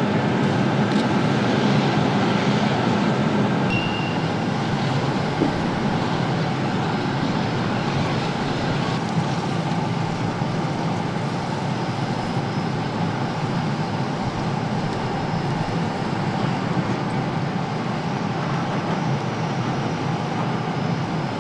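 Loud, steady engine-like running noise that does not change throughout, with a brief faint high whistle about four seconds in.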